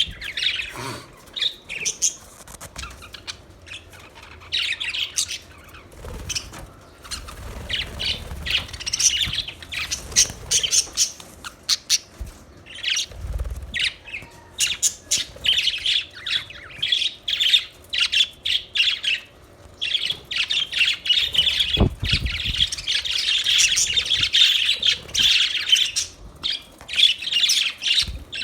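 Budgerigars chirping and warbling in rapid, overlapping bursts, becoming a near-continuous chatter in the second half, with occasional squawks and a few low thumps.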